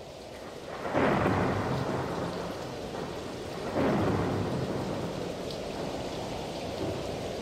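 Steady rain with two rolls of thunder, about a second in and near four seconds in, each swelling suddenly and slowly dying away.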